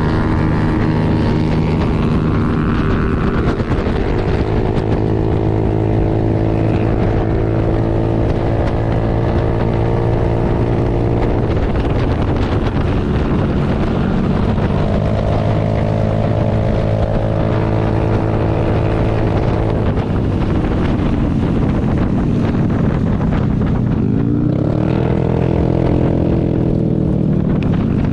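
Motorcycle engine running at cruising speed, heard from on the bike, with steady wind and road rush. The engine note holds steady for stretches, changes a few times, and near the end dips and climbs again.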